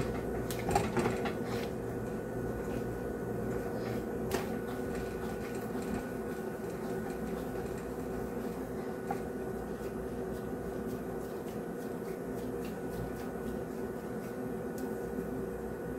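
Steady mechanical hum of a kitchen appliance or fan, with a few soft knocks from dough being kneaded and pressed on a cutting board, mostly in the first few seconds.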